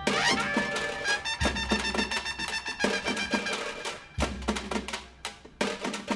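Background music: an upbeat instrumental with steady percussive hits and a brass-like melody.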